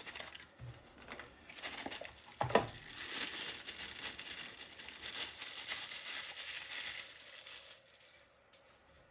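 Packaging crinkling and rustling as a lathe tool holder is unwrapped, with a sharp knock about two and a half seconds in; the crinkling dies away near the end.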